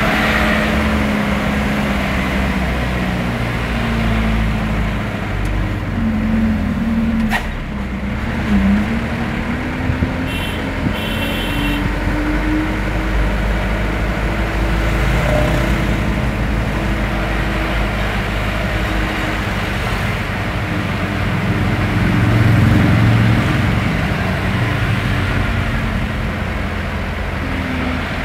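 Vehicle engine running at low speed in slow traffic, heard from inside the cabin: a steady low hum whose pitch drifts a little as the speed changes. A sharp click comes about seven seconds in, and a short run of high beeps about ten seconds in.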